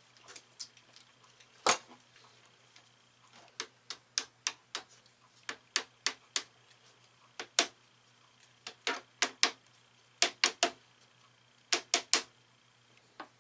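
A small hammer tapping lightly on a piece of hacksaw blade set against a rifle stock at the ramrod pipe, to mark its place: about two dozen short, sharp taps in uneven runs of two to four. The loudest tap comes a little under two seconds in.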